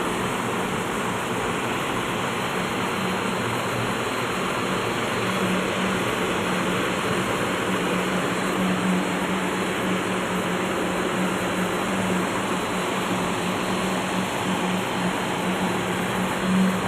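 Ship's emergency diesel generator running steadily after a battery start, a dense mechanical noise with a constant droning note.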